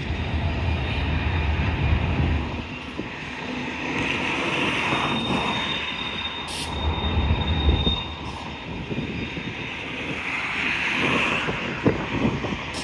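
Freight train cars rolling past with a steady rumble, and a thin, high wheel squeal held for a couple of seconds near the middle. A few sharp clicks come near the end.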